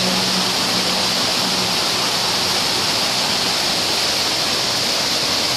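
Steady, unbroken rush of water from an indoor fountain splashing into its basin.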